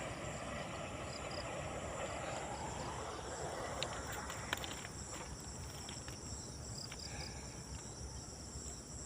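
Insects chirping steadily in a high, shrill band, over a broad rushing noise that fades away over the first three seconds. Two sharp clicks come about four seconds in.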